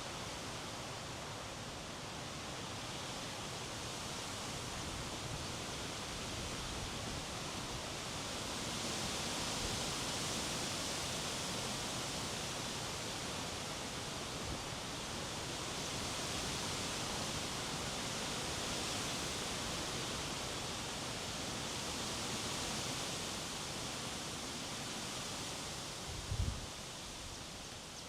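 Strong wind gusting through trees, a steady rush of noise with a brighter rustle that swells and fades several times. A short low thump near the end, wind buffeting the microphone.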